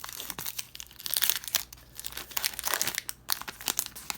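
Upper Deck SP Authentic hockey card pack wrapper crinkling in the hands as it is opened, in quick irregular crackles, loudest a little after one second and again near three seconds.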